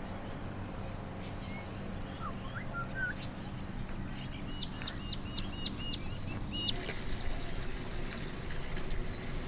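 Birds calling at a waterside at dawn: a few scattered chirps, then a quick run of about six sharp repeated notes near the middle, over a low steady hum.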